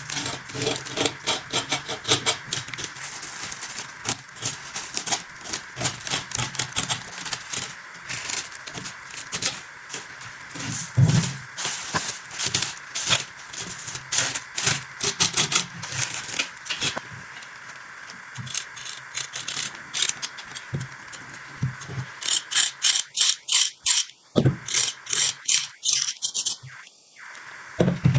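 Quick metallic scraping and clinking, many short strokes a second, with a quieter stretch in the middle and a dense run of strokes near the end: hand work on a rusty metal blade.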